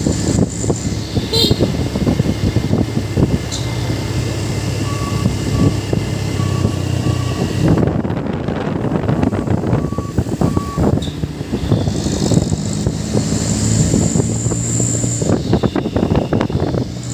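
Truck engine running, with a reversing alarm beeping in two short runs, about five seconds in and again about ten seconds in.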